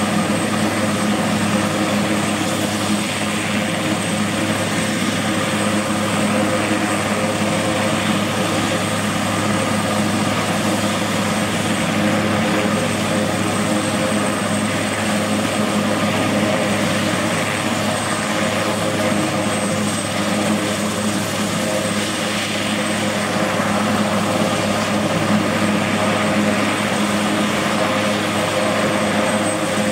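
Eurocopter AS332L1 Super Puma helicopter running on the ground, its twin turboshaft engines and rotors turning at a steady speed. A thin, high turbine whine sits over the steady rotor and engine drone.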